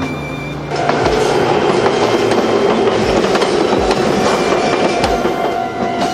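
Red Meitetsu electric commuter train passing close by, its wheels clacking over the rail joints about once a second under a steady running rumble. It starts suddenly less than a second in, replacing background music.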